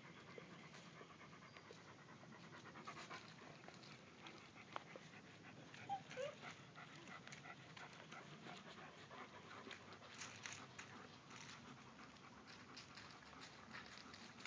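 Faint panting of Shiloh Shepherd dogs, with light scuffling of puppies at play and two short high squeaks about six seconds in.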